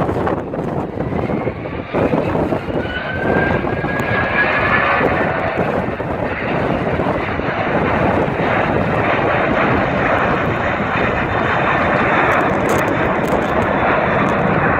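Airbus A320's IAE V2500 turbofan engines at takeoff thrust: a thin whine rising in pitch a few seconds in, over a loud, steady rush of jet noise. Wind buffets the microphone throughout.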